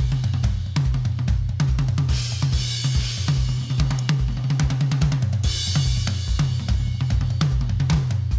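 Drum kit played in a steady driving groove of kick, snare and hi-hat, with steady low notes underneath. Cymbal crashes ring out about two seconds in and again about five and a half seconds in.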